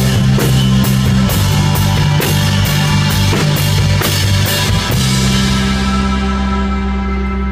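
Live rock band playing the close of a song. Drums and cymbals crash about twice a second over guitar and bass. About five seconds in the drums stop and the final chord rings out.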